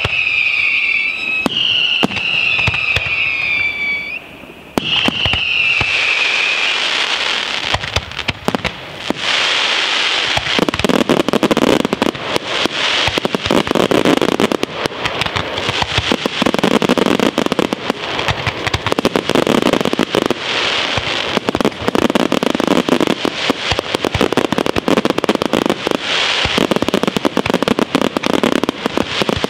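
Aerial fireworks display: three falling whistles in the first few seconds, then a dense, continuous barrage of shell bursts and crackling effects, with heavier booms coming every second or two.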